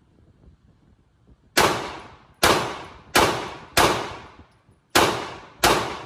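Six single gunshots fired one at a time, starting about a second and a half in. They come roughly 0.7 s apart, with one slightly longer pause after the fourth, and each shot rings off briefly.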